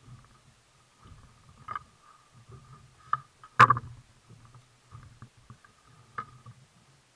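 Spinning rod and reel being worked against a hooked fish from a kayak: a faint thin whine from the reel comes and goes over irregular low water noise against the hull, with a few sharp knocks of the tackle, the loudest about three and a half seconds in.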